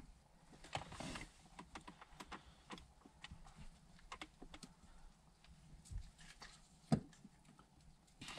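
Faint, scattered clicks and light taps of gloved hands handling and fitting parts of a VW Golf GTI mk4 gear shifter assembly, with one sharper click about seven seconds in.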